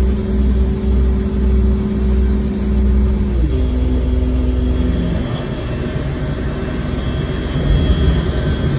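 An engine running steadily with a heavy low rumble; about three and a half seconds in its pitch drops, and it settles into a rougher, lower running sound.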